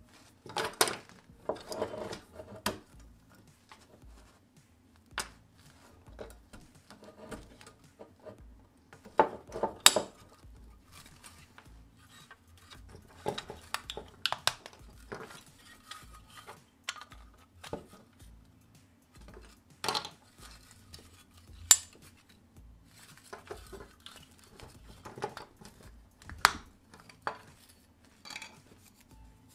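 A die-cast model Porsche Macan being taken apart by hand: irregular clicks, knocks and rattles of its plastic and metal parts as they are pried loose and handled. A few knocks stand out, the loudest about ten and twenty-two seconds in.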